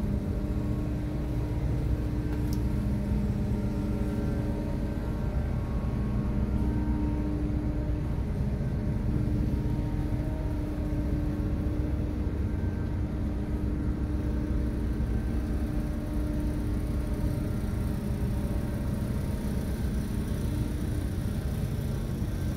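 Ferry's engines droning steadily: a low rumble with a few held humming tones over it.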